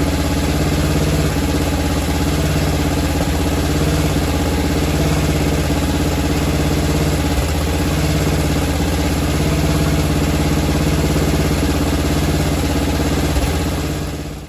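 Engine of a 1999 DR brush mower converted to a snow plow, idling steadily while it warms up; the sound fades out near the end.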